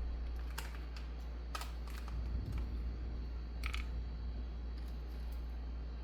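A handful of short, light clicks and taps of cookware being handled as shrimp go into a buttered skillet, over a steady low hum.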